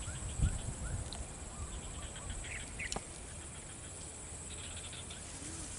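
Faint outdoor ambience: scattered short bird chirps over a steady high hiss, with a soft low thump just after the start and a sharp click about three seconds in.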